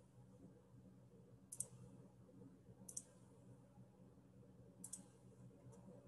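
Near silence with a few faint, sharp computer mouse clicks spaced a second or two apart, over a low room hum.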